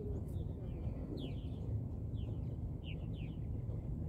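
Small birds chirping: a string of short, quick, falling chirps, several to the second in places, over a steady low rumble.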